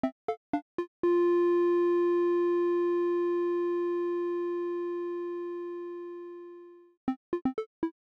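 Background electronic music. Short plucked notes play in a quick rhythm, then about a second in a single long held note slowly fades away over about six seconds, and the quick plucked notes come back near the end.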